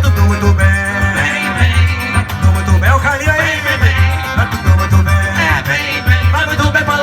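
Live forró band music with a steady pulsing bass beat under a melodic lead line.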